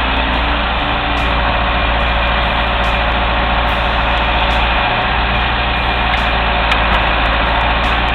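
Heavy engine running steadily, with a constant low drone.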